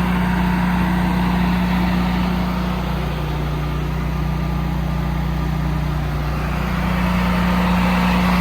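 Air-cooled home standby generator running up close, a loud, steady engine hum. Its pitch sags a little in the middle before returning.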